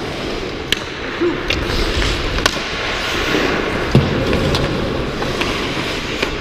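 Ice skates scraping and wind rushing over a player-worn GoPro during hockey play, with several sharp clicks of stick and puck. The loudest knock comes about four seconds in.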